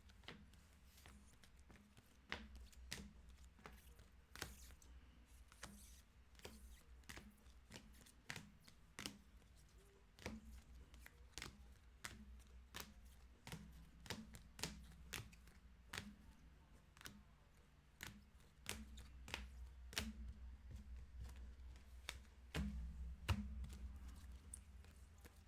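Trading cards being handled and set down: a string of faint, sharp clicks and taps, about one or two a second, over a low steady hum.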